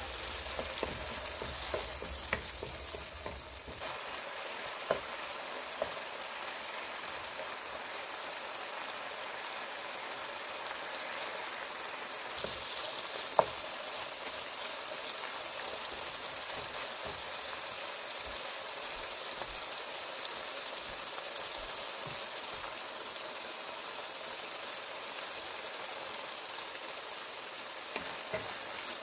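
Chicken frying in butter with onions in a hot frying pan, a steady sizzle with scattered sharp clicks, the loudest about halfway through. A low hum underneath stops about four seconds in.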